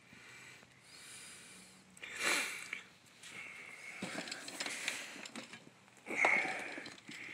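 A person breathing or sniffing close to the microphone, two short audible breaths about two seconds and six seconds in, with faint clicks and rustles from the camera being handled in between.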